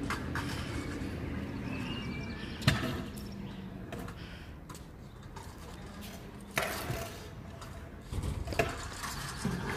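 A few sharp knocks and clacks from a stunt scooter on paving, one about three seconds in, another a little past six seconds and a short cluster near the end, over a low steady rumble.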